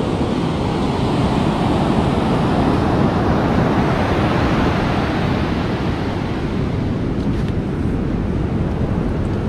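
Ocean surf washing and breaking on the beach in a steady rush, with wind buffeting the microphone.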